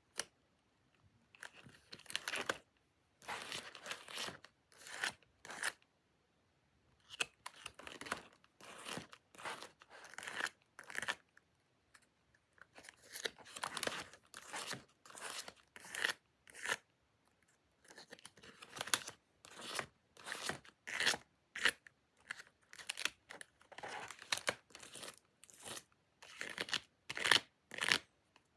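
Close-up paper and sticker-sheet handling: quick, crisp tearing and crinkling strokes in irregular clusters, separated by brief silent pauses.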